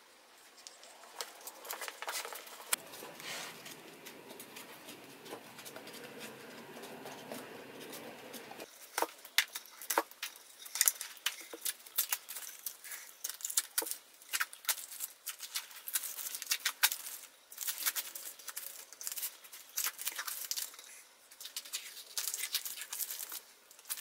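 Blue painter's tape being peeled off the sides of a glued-up wooden box: a dense run of sharp crackling rips and ticks that starts about nine seconds in, after quieter handling of the band clamps.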